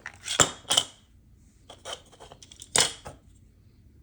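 A 3D-printed plastic Smarties shooter being handled, giving sharp plastic clicks and knocks. Two come early, a quick run of lighter ticks follows around two seconds in, and the loudest knock comes near three seconds.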